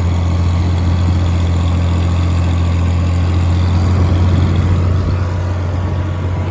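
Tractor engine running steadily under load while pulling a field cultivator slowly in second gear, a deep even hum with no change in speed.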